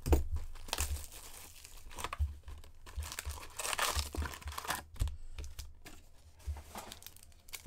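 Cardboard hobby box of 2021-22 SP Authentic hockey cards being torn open: irregular tearing and crinkling of the cardboard and the packaging inside, the sharpest tear right at the start.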